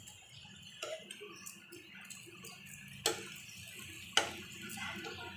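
Steel spatula tapping against a nonstick tawa three times, the loudest tap near the end, over a faint steady sizzle of potato patties shallow-frying in oil.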